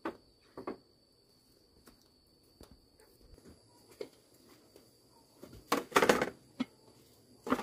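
Ceramic bowls and metal spoons knocking and clinking as they are set down on a table: a few light clicks at first, a quiet stretch, then a clatter of dishes about six seconds in and one more knock near the end.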